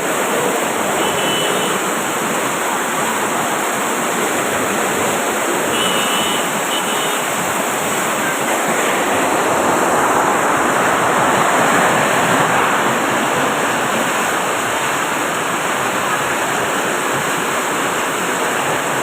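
Heavy rain pouring down in a loud, steady rush of water noise.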